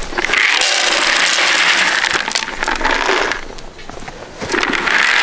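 Dry dog food poured from a container into a hanging plastic feed bin, the pellets rattling as they fall. It pours for about three seconds, pauses briefly, then pours again near the end.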